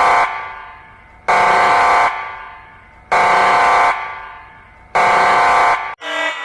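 Alarm horn sounding in repeated loud blasts, each under a second with an echoing fade, about every two seconds, three in all. About six seconds in it cuts to a different, buzzing alarm tone.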